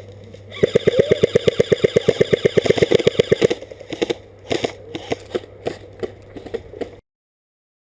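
Airsoft electric rifle firing a full-auto burst of about ten shots a second for roughly three seconds, then a few scattered single shots. The sound cuts off suddenly near the end.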